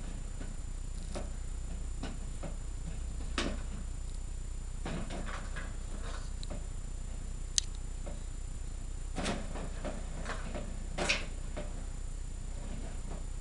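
Empty plastic bottles on a wooden treat-dispenser frame knocking and rattling as a dog noses them round, with treats rattling inside: irregular clicks and knocks, a sharp click about halfway through, over a steady low hum.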